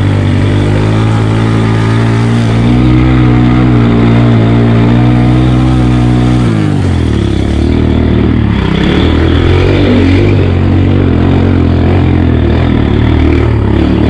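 Motorcycle engine running steadily under load as the bike climbs a steep mountain road. About six and a half seconds in, the engine note drops, and after that it runs rougher and more unevenly.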